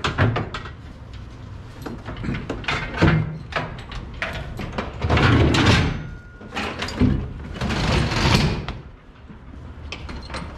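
A fire engine's equipment compartment door being opened, with a run of clunks and rattles and a couple of longer sliding rushes around the middle and near the end.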